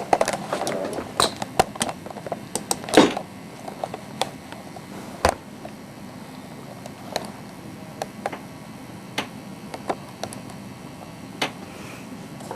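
Irregular knocks, clicks and rustling from things being handled or moved about, busiest in the first couple of seconds, with the loudest knock about three seconds in, over a steady low room hum.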